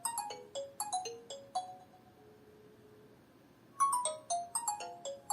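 Nokia C30 ringtone sounding for an incoming call: a quick falling phrase of short bell-like notes, which starts again after a pause of about two seconds.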